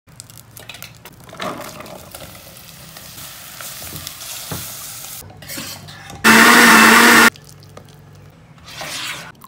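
Butter and oil sizzling in a ceramic pot, then a spatula stirring sliced mushrooms. About six seconds in, a hand blender runs loudly for about a second, a steady motor hum, puréeing the soup.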